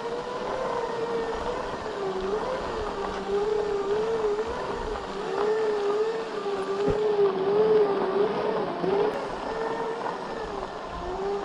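Segway's electric drive whining as it rolls along, its pitch wavering up and down about twice a second as the speed shifts.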